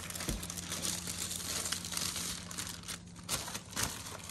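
Clear plastic bag crinkling and rustling as it is handled around a cardboard collectible box, with a low thump about a third of a second in.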